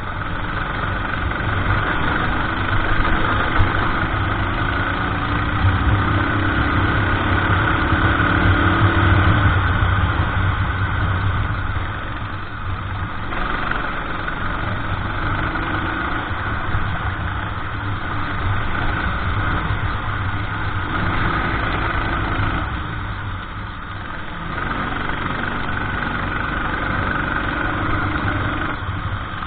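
Rental racing kart engine running under load, its pitch climbing steadily along the straights and falling away twice as it backs off for corners, about twelve and twenty-three seconds in.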